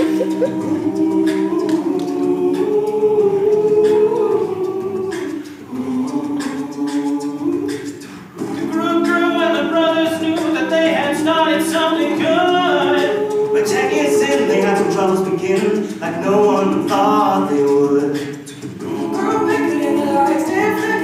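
All-male a cappella group singing: the lower voices hold sustained backing chords, and a higher lead melody comes in over them about eight seconds in.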